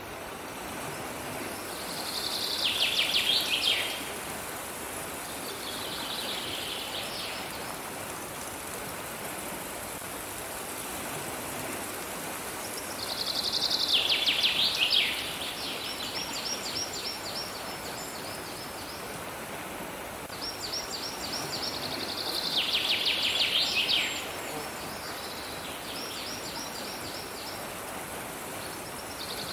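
A songbird singing short, loud phrases of fast repeated high notes, several sliding down in pitch at the end, repeated every few seconds over a steady, even hiss.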